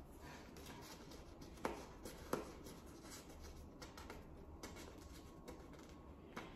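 Faint rustling and handling of a paper label against a plastic binder, with two light clicks about a second and a half and two and a quarter seconds in.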